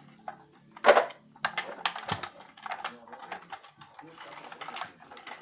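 Plastic clicks, clacks and knocks from a yellow CAT toy dump truck being handled and pushed by hand, with one louder knock about a second in and a busy run of clacks after it.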